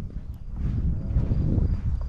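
Footsteps on a forest path, with a low rumble that swells through the middle. A faint, high, short call repeats about three times a second, steady throughout.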